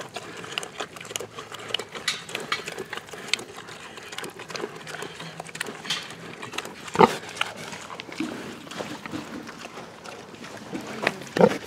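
Sow and piglets eating feed from a pan at close range: irregular chewing and crunching clicks, with a louder knock about seven seconds in and a few sharp clicks near the end.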